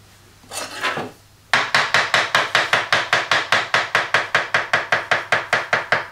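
Kitchen knife chopping carrots on a cutting board: fast, even strokes at about seven a second, starting about a second and a half in.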